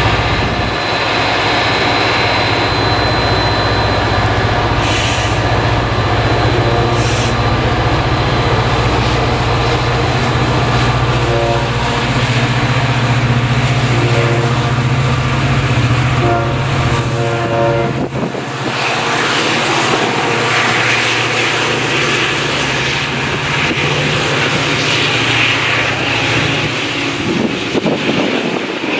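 EMD F40PH diesel locomotive, with its two-stroke V16 prime mover, drawing a commuter train away from a station with a steady low engine drone. Several short horn blasts sound a little before the middle. After about 18 seconds the engine drone falls away, leaving the rushing noise of the passing coaches.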